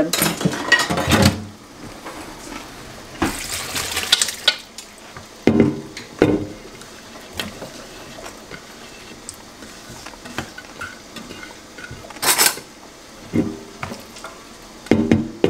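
Bowls and a metal spoon clattering in a kitchen sink as sliced cucumbers and onions in their liquid are scooped and poured into a colander, with splashes of liquid. The sound comes in several separate bursts, the sharpest a little past the middle.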